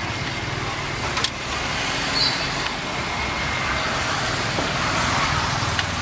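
Street traffic noise with a steady low engine hum, broken by a couple of sharp clicks about a second in and near the end.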